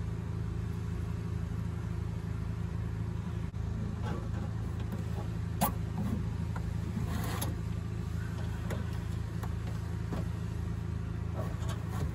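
A steady low mechanical hum, with a few sharp clicks and a short rasp about seven seconds in as the plastic washer fluid reservoir and its zip ties are handled under a pickup's hood.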